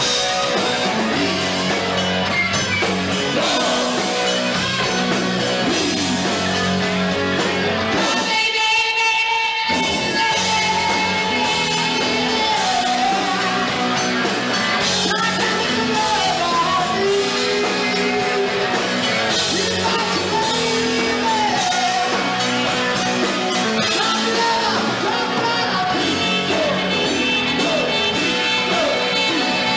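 Live rock band playing, with electric guitars, drums and a male lead singer. About eight seconds in, the band drops out for a moment, leaving a held note, then comes back in at full volume.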